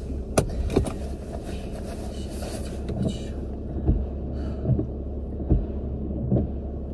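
A car running, heard from inside the cabin: a steady low engine and road rumble, with short soft knocks repeating about every 0.8 s in the second half.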